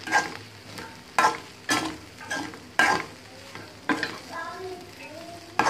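A spatula scrapes and knocks against an aluminium pan in irregular strokes, about one every half second to a second, as boiled idli pieces are turned through fried masala. A faint frying sizzle runs underneath.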